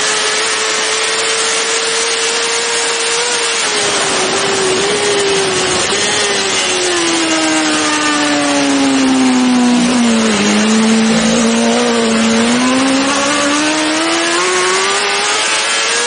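BMW S1000RR superbike's inline-four engine at high revs, heard from on the bike with heavy wind rush. It holds a steady high note for the first few seconds, then the revs fall gradually over several seconds and climb smoothly back near the end.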